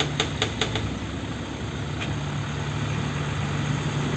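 Hino FM 260 TI truck's diesel engine running steadily, powering the truck-mounted loader crane as it lifts a concrete pile. A quick run of sharp clicks comes in the first second, and another click about two seconds in.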